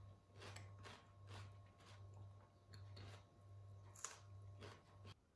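Faint eating sounds: soft chewing strokes about twice a second, with one sharper clink about four seconds in, over a steady low hum.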